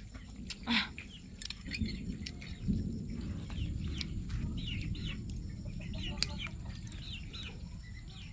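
Chickens clucking, with short repeated calls several times a second that come thickest from about three seconds in, over a low steady rumble. A few sharp clinks of a metal spoon against a ceramic bowl, the loudest about a second in.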